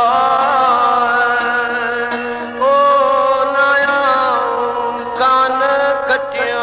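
A man singing a Sindhi Sufi song in long, held notes with wavering ornaments, a new phrase starting about two and a half seconds in and again about five seconds in.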